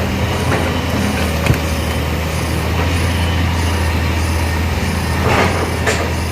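Excavator's diesel engine running steadily with a deep hum, with a sharp knock about a second and a half in and a short noisy clatter about five seconds in.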